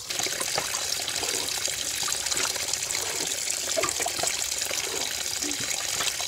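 Muddy canal water pouring steadily through gaps in a mud dam and splashing down onto a woven bamboo fish trap, a continuous rushing splash. The current carries the fish into the trap.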